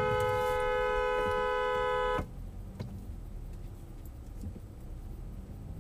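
Car horn held in one long, steady two-tone blast that cuts off suddenly about two seconds in, leaving low road rumble.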